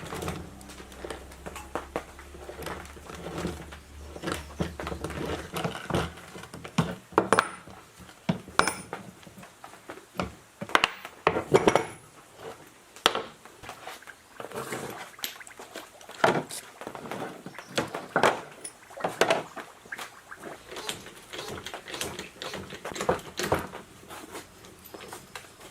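Metal parts and tools being handled on a workbench, with irregular clinks and clanks, while a low hum stops about six seconds in.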